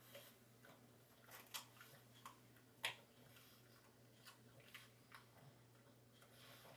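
A dog chewing a carrot: faint, irregular crunches and clicks, the sharpest about three seconds in.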